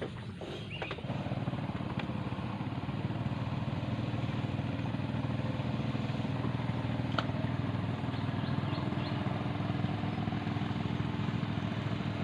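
A small boat engine running steadily; it grows louder about a second in.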